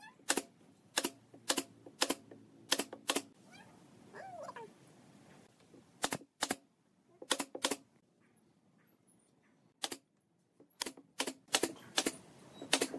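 Pneumatic brad nailer firing nails into pine boards: sharp, single shots that come in quick irregular runs, with pauses around five and nine seconds in.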